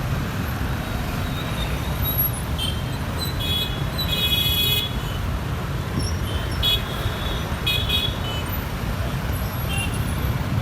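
Road traffic running steadily, with vehicle horns honking repeatedly: short toots throughout and one longer blast about four seconds in.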